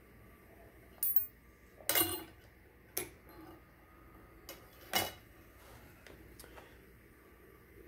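Brass .223 cartridge cases dropping one at a time out of a small motor-driven annealer, each with a sharp metallic clink. Four clinks come about a second apart, the last after a longer gap, with a few fainter ticks between them.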